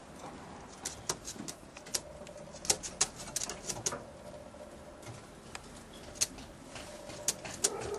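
Racing pigeons moving about a loft nest box: irregular sharp clicks and taps, coming in small clusters of a few a second.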